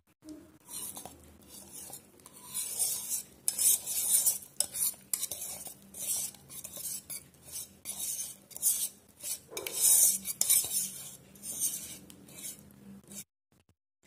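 A spoon scraping and clinking against cookware as thick milk pudding is scraped out and spread in a glass dish: irregular scrapes, some louder, that stop suddenly near the end.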